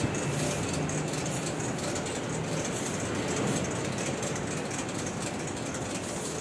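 A long printing-line conveyor belt running steadily, a continuous mechanical noise with a faint low hum.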